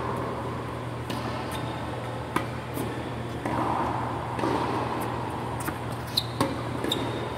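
Tennis balls being struck by rackets and bouncing on a hard court, heard as sharp pops spread through the rally, the loudest two close together about six seconds in, over the steady hum of large ventilation fans in the hall.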